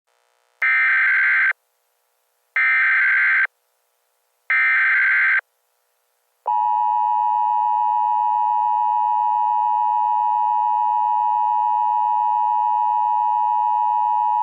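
Emergency Alert System broadcast tones: three short raspy bursts of SAME header data about two seconds apart, then the steady two-tone attention signal held for about eight seconds.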